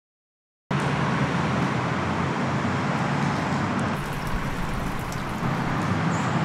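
Steady outdoor background noise with a low hum, beginning abruptly after a moment of silence.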